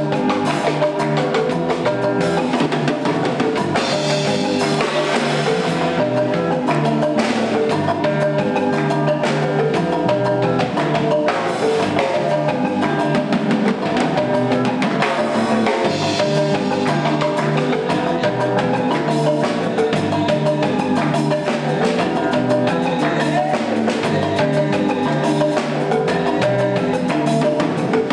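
Live band playing an upbeat instrumental: a South African marimba's mallet notes over electric bass and a drum kit keeping a steady beat.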